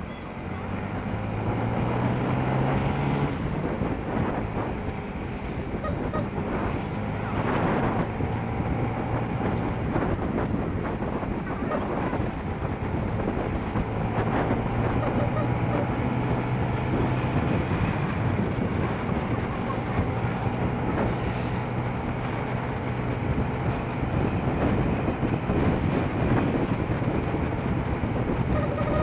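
Congested road traffic: vehicle engines running steadily at low revs, with horns sounding now and then.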